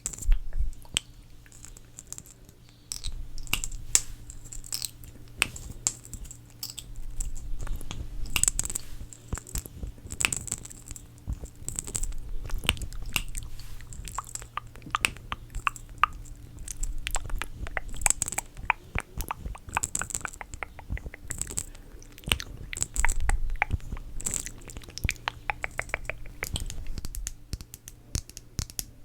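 Close-miked ASMR sounds of makeup products being handled: a long, dense run of taps, clicks and crackles.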